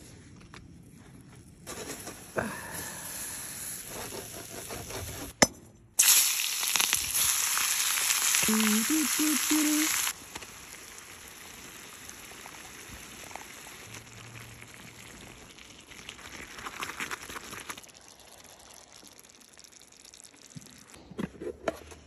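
Food frying in hot oil in a cast-iron skillet over charcoal. The sizzle grows loud and hissing from about six seconds in and cuts off abruptly near ten seconds, then carries on softer. A sharp click comes just before the loud part.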